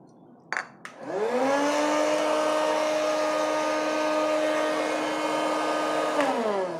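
Electric hot-air snack and popcorn maker: a couple of clicks, then its fan motor whirs up to speed, runs with a steady whirring hum, and is switched off near the end, its pitch falling as it spins down.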